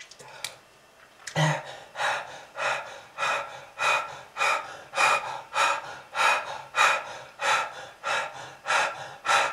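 A smoker gasping for breath in quick, rhythmic pulls, about one and a half a second. They start after a quiet second or so, between coughing fits.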